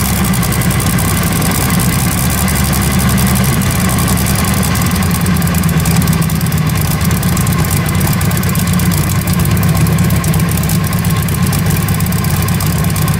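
Big exposed multi-cylinder engine of a modified pulling tractor idling steadily, just after being started with an external starter trolley.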